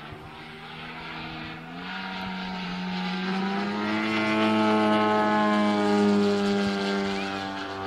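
Engine and propeller of a giant-scale radio-controlled Extra 330SC aerobatic plane in flight: a steady drone that grows louder as the plane comes closer, its pitch rising a little about two seconds in. It is loudest around five to six seconds in, then eases off slightly.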